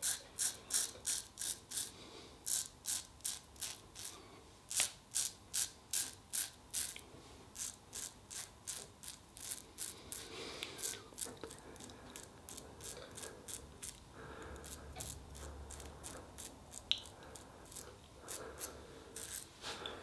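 Double-edge safety razor (Merkur Futur with a fresh Lord Platinum blade) cutting stubble through shaving lather in short strokes, a quick run of scratchy rasps at about three a second. After about seven seconds the strokes turn quieter and more irregular.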